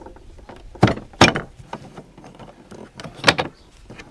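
Plastic hard carrying case of a rotary hammer drill being handled on concrete, its latches snapped open: a few sharp plastic clicks and knocks, two close together about a second in and one more near three seconds in.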